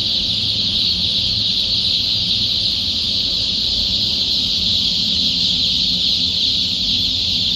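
Thousands of young Atak-S layer chicks cheeping together: a dense, unbroken chorus of high peeps that holds steady throughout.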